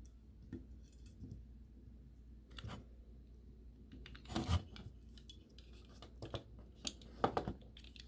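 Small clicks, taps and knocks of plastic and metal model-locomotive parts being handled and fitted together as a drive truck is reassembled, the loudest about four and a half seconds in and again around seven seconds.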